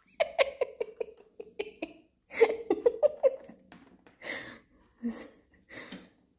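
A person laughing and giggling in quick runs of short bursts, with a few separate bursts near the end.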